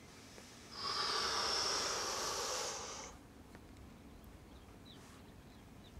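A single long breathy hiss of about two seconds, starting about a second in and fading out.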